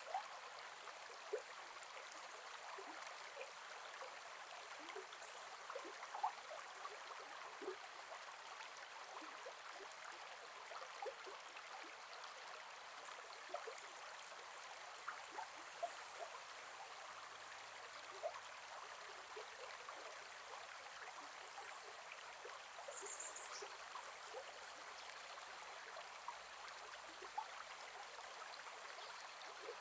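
Gentle forest river flowing: a steady rush of water with frequent small splashes and gurgles scattered throughout.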